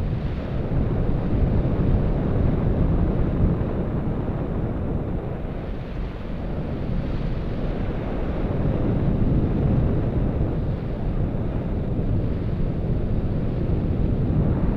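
Airflow buffeting the microphone of a Contour action camera on a paraglider in flight: a steady rush of wind noise that swells and eases every few seconds.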